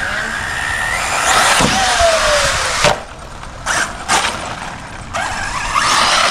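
Arrma Typhon 6S brushless RC buggy driven hard: a high electric motor whine over the noise of the tyres churning on frozen ground. It backs off sharply about three seconds in, gives two short bursts of throttle, then speeds up again near the end.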